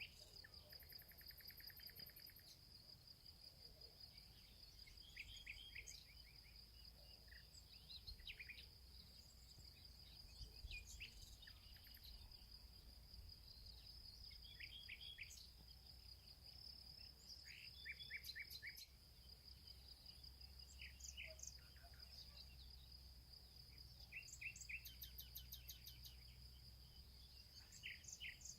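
Faint outdoor insect chorus, a steady high-pitched trill, with short bird chirps in quick runs of three or four notes breaking in every few seconds over a low rumble.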